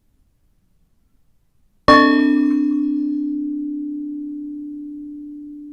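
A ship's bell struck once, about two seconds in, picked up through a contact microphone on the bell. The bright upper tones die away within about a second and a half, leaving one steady hum that rings on and slowly fades with a slight wavering.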